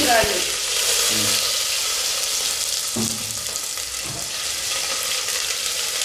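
Chopped onion and garlic sizzling in hot oil in an aluminium pressure cooker pan. The sizzle flares up at the start as the food goes in, then settles to a steady hiss.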